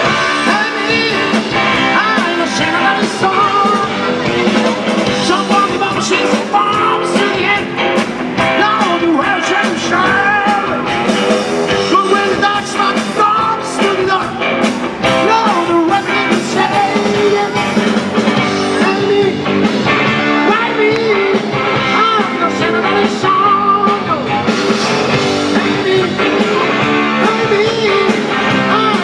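Live rock and roll band playing loudly: electric guitar over a drum kit, with a melody line bending up and down.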